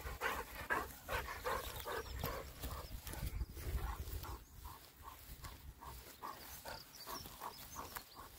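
A dog making short, rhythmic sounds, about three a second, that grow fainter over the stretch.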